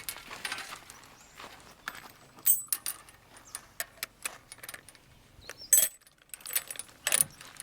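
Irregular light clinks and rattles of small hard objects being handled, with a few sharper knocks, the loudest about two and a half seconds in and near six seconds.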